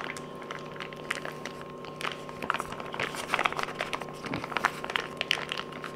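Plastic food pouch crinkling in many small irregular clicks as it is squeezed and shaken to empty the last of a beef stew, thicker from about two seconds in. A faint steady hum runs underneath.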